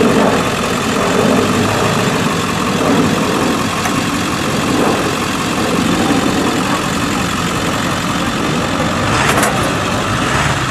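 Pickup truck engine idling steadily, with no revving.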